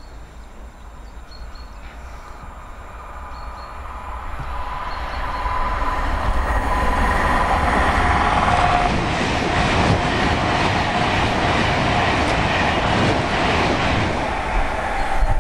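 A train approaching and passing on the main line. It builds up loud over the first six seconds, then comes the clatter of wheels over the rails. A whine drops in pitch about eight seconds in as it goes by.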